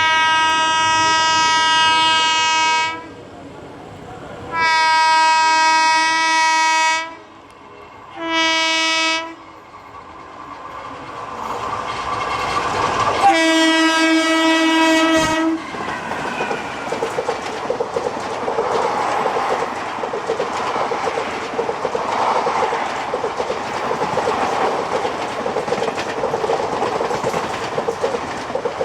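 Indian Railways WAP4 electric locomotive's air horn sounding four blasts, long, long, short, long, as the express approaches at high speed. The train then runs past with a steady rush and a rhythmic clickety-clack of wheels over rail joints.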